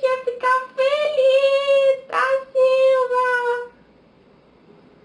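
A woman singing without words in a high voice, holding a few long notes at nearly one pitch; she stops a little before four seconds in, leaving only faint room sound.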